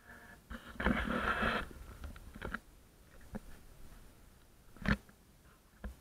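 Live blue swimming crabs being handled and sorted by hand: shells scraping and clattering against each other and against plastic baskets. There is a noisy burst of scraping about a second in, then a few sharp knocks, the loudest about five seconds in.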